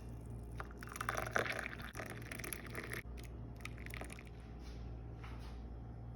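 Guava-leaf tea being poured, with a few light clicks and knocks of handling; the pouring is strongest for about the first three seconds. A steady low hum runs underneath.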